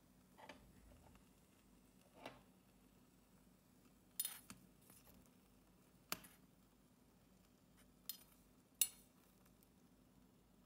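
Small metal spatula tapping and scraping against a miniature wok as popcorn is scooped: a handful of sharp, light clicks, the loudest about four and nine seconds in.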